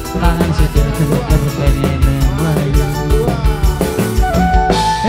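Live tarling band music: a steady drum beat and bass under an electric guitar and keyboard melody whose lines slide in pitch.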